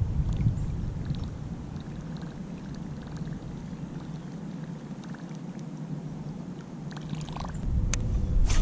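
Baitcasting reel being cranked to retrieve a topwater lure, a soft steady whir, with light water sounds against the plastic kayak hull. A few sharp clicks come near the end.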